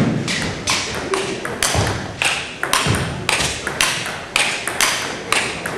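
Table tennis rally: the ball clicking off paddles and table in a long, even back-and-forth, about three hits a second.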